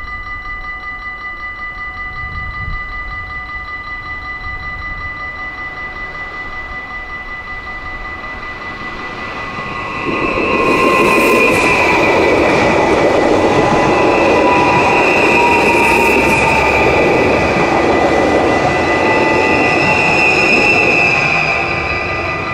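Level-crossing warning bells ringing steadily. About ten seconds in, an NS Sprinter electric passenger train passes over the crossing, its wheels rumbling with a high squeal, for about eleven seconds before the sound fades and the bells ring on.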